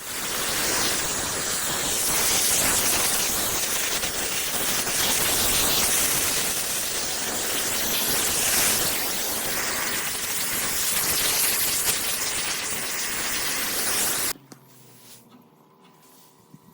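Loud steady hiss of gas rushing out under pressure, which stops suddenly near the end.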